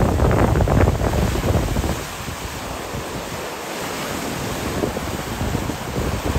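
Choppy lake waves washing and breaking on the shore in strong wind, with gusts hitting the microphone. The wind buffets hard for about the first two seconds, eases to steady surf, then gusts again near the end.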